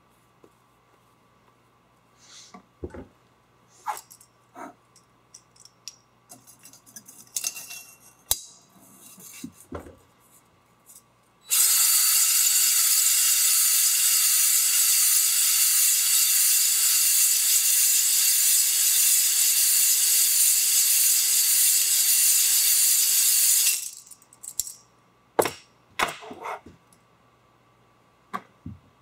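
Cordless drill spinning a cylinder hone inside a steel AeroVee engine cylinder, honing light surface rust off the wall to leave a crosshatch. It runs steady and loud for about twelve seconds, starting about a third of the way in and cutting off abruptly. Light clicks and knocks come before it, and a few sharp knocks after it.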